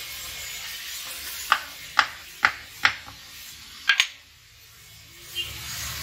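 Six sharp knocks with a short ring, spaced about half a second apart with a close double knock near four seconds, as a billhook with its hot tang set in a wooden handle is knocked down against a wooden block to drive the handle home. A steady hiss comes before the knocks.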